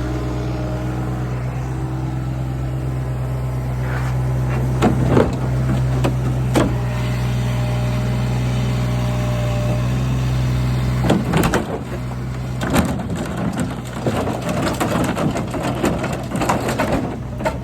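An engine running steadily, with a few sharp knocks. After about eleven seconds the engine note drops away into clattering and scraping as the pool stairs are worked loose.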